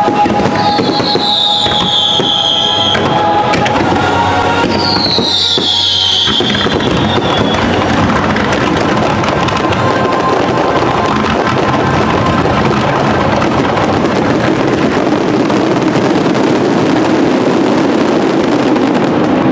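Fireworks finale barrage with show music. In the first few seconds two falling whistles sound over the music and bursts. From about seven seconds in, the explosions merge into a continuous dense crackling.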